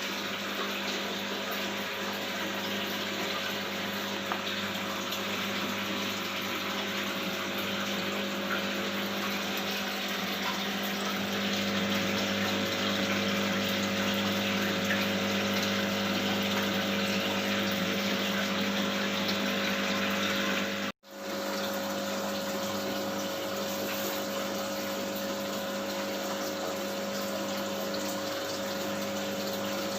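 Aquarium water pump running steadily, with a constant wash of moving water and a steady motor hum. The sound drops out for an instant about two-thirds of the way through, then carries on unchanged.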